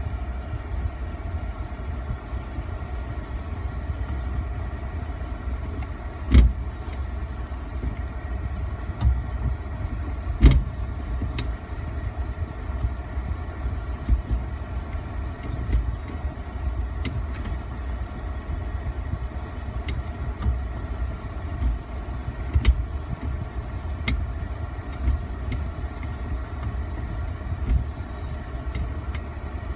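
Daewoo Damas engine idling steadily, with a series of brief, sharp grinding clunks from the gearbox as reverse is pushed in, the loudest about six and ten seconds in. The reverse gear grinds because it has no synchromesh.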